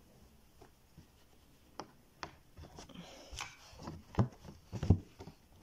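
Embroidery thread being drawn through fabric stretched in a hoop, with soft rubbing and handling noise and a few light clicks and taps, most of them in the second half.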